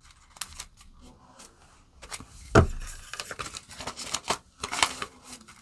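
Polymer banknotes and a clear plastic envelope being handled, giving irregular crinkles, rustles and small clicks, with one dull thump about two and a half seconds in.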